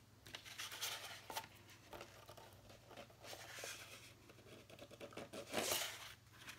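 Cardstock and paper handled on a tabletop: rustling and sliding in several bursts, the loudest near the end.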